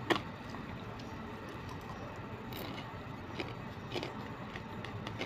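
A plastic spoon clicking and scraping against a plastic food container as rice is scooped up: a sharp double click at the very start, then a few lighter clicks, over a steady low background hum.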